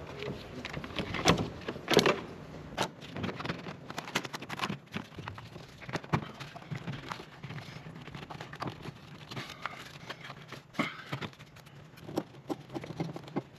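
Irregular clicks and knocks of hard parts and tools being handled during engine bay reassembly, the two loudest about one and two seconds in.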